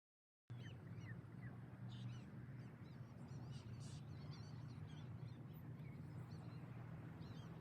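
Birds calling in short, repeated chirps over a low, steady outdoor rumble, starting about half a second in.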